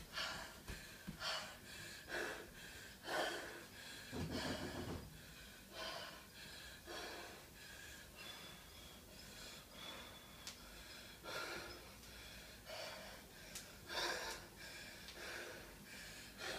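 A woman breathing hard through her mouth, out of breath from seated arm exercises: a string of loud, gasping breaths, roughly one every second.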